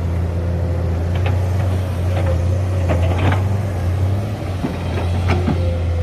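Heavy diesel engine of earthmoving machinery running steadily with a deep hum, broken by a few short clanks and squeaks about one, two, three and five seconds in.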